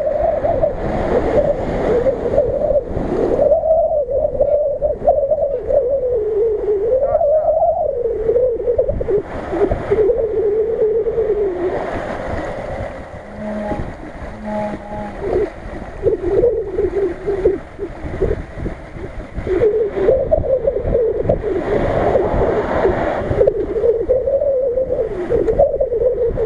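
Nissan Patrol's engine revving up and down as it drives through river water, its note rising and falling constantly, over the rush and splash of water around the wheels. The engine note briefly drops away about halfway through.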